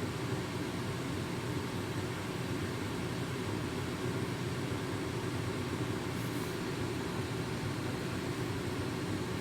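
Atwood 8135 RV propane furnace blower running steadily, a low, even whir, after the furnace has been switched on and before the burner lights.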